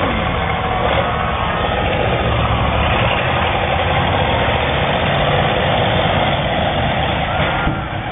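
Several demolition derby cars' engines running loudly together, a steady mixed engine din with no single event standing out.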